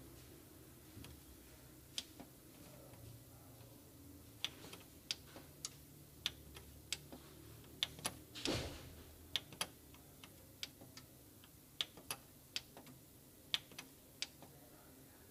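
Plastic buttons on a printer's control panel clicking as a finger presses the arrow and OK keys to type in a Wi-Fi network key, one sharp click after another at uneven spacing. A short rubbing noise comes about halfway through.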